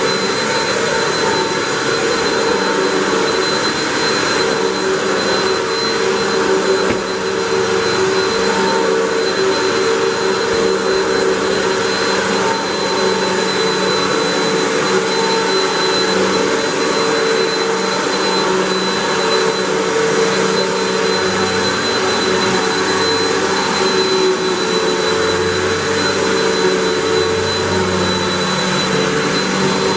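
Hoover WindTunnel 3 Pro Pet upright vacuum cleaner running steadily with its brush roll on, a constant whine with a high steady tone over the motor's noise. A low hum rises and falls a few times in the second half as the cleaner is pushed along.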